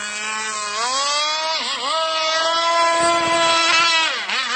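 Brush-cutter engine of a radio-controlled longtail boat running on the water. It revs up about a second in, dips briefly, holds high for a couple of seconds, then throttles back near the end.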